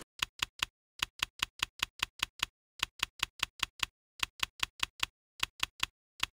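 Typewriter keystroke sound effect accompanying on-screen text typing out: sharp, identical key clicks at about five a second, in short runs broken by brief pauses.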